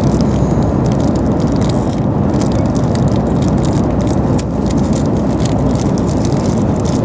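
Steady drone of an airliner cabin in flight, with the crinkling and rustling of a snack packet handled close to the microphone.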